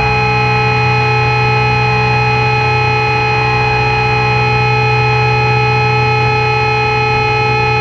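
Sludge doom drone passage: several held feedback tones over a steady buzzing amplifier noise, unchanging and without any beat.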